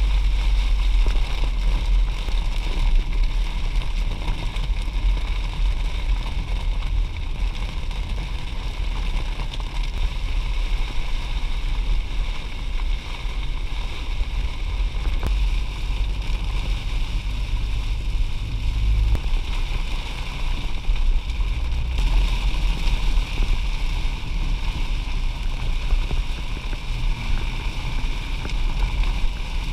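4x4 driving on a flooded road in a heavy rainstorm: a steady low rumble of the vehicle under an even hiss of rain and water on the road and body.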